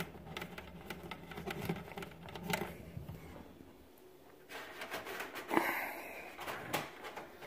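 Handling noise: scattered light clicks and taps of a thin LED light cable being pushed and rubbed against the wooden cabinet. A few louder knocks come in the second half, the loudest about three-quarters of the way through.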